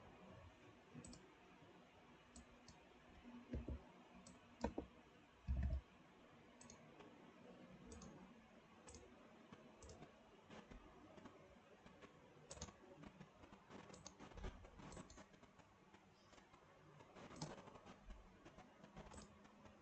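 Faint computer mouse clicks, irregular and spaced about a second or so apart, with three louder dull low thumps about four to six seconds in.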